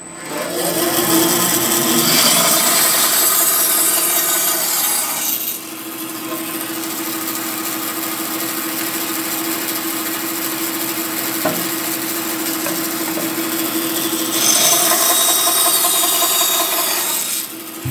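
Bandsaw cutting off the wood of an axe handle and its wedge where they stick out of the top of the axe head's eye, in two cuts. The first cut runs for about five seconds. The saw then runs free with a steady hum for about nine seconds, and the second cut comes near the end.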